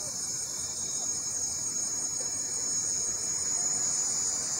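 A chorus of night insects such as crickets: a steady high-pitched trill with a second, evenly pulsing trill above it, and no thunder.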